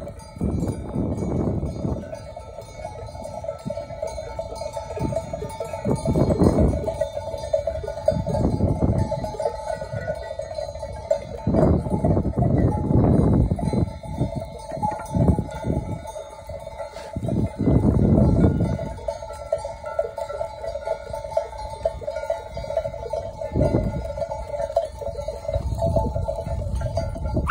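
Bells on a flock of sheep ringing together without a break as the flock walks, a steady jangle of many small bells. Low rumbling bursts come and go over it several times, the loudest about halfway through.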